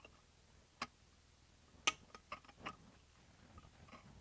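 A few light, scattered clicks and taps as an X-Lock cutting disc is set onto a Makita X-Lock angle grinder's mount and fiddled into position; the loudest click comes about two seconds in.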